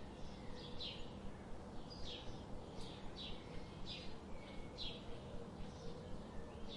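Birds chirping: short, high, falling chirps, about one or two a second, over a steady background hiss.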